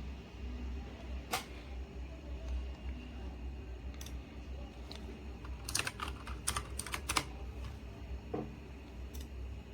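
Keys of a Razer Huntsman Mini keyboard with clicky optical switches being pressed: sharp clicks, mostly single and spaced out, with a quick run of about eight keystrokes a little past halfway, over a steady low hum.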